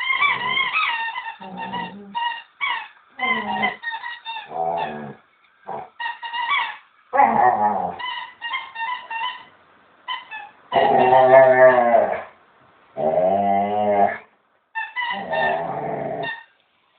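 Belgian Shepherd dog vocalizing in bursts at play with its toy: short whines and yips, with two longer wavering howl-like growls around the middle of the stretch.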